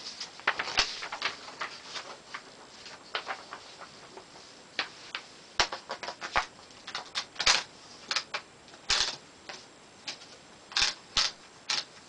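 1892 Empire No. 1 typewriter being loaded with a sheet of paper: irregular mechanical clicks and knocks from the carriage and platen, louder in the second half.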